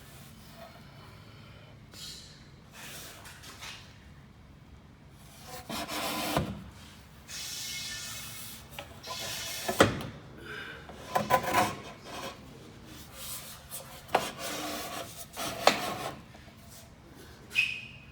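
Scraping and rubbing from work on a hollow metal door frame, then several sharp knocks, the last near the end with a brief metallic ring.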